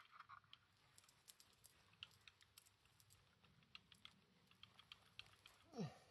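Faint, irregular light clicking and rattling from a T238 MkIII water-bead airsoft grenade being shaken hard by hand to test whether it holds together. Near the end a short tone falls steeply in pitch.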